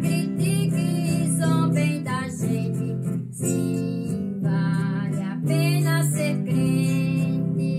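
Music: acoustic guitar playing sustained chords under a melodic singing voice.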